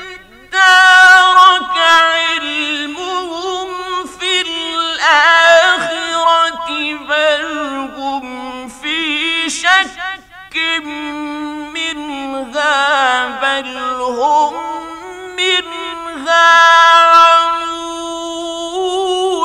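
A man chanting the Quran in the ornate mujawwad style: a single voice holding long notes that waver and turn up and down, with a few short breaks between phrases.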